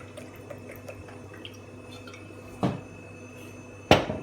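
A cup of water being added to a cooking pan: light drips and ticks of water, then two sharp clunks of the cup or vessel against the pan, about two and a half and four seconds in, the second the louder.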